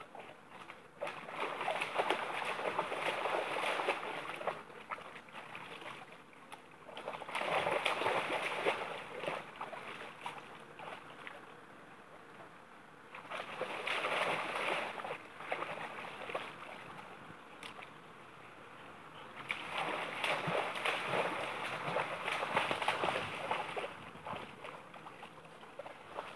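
A dog splashing about in shallow river water in four bouts of a few seconds each, with quieter stretches between.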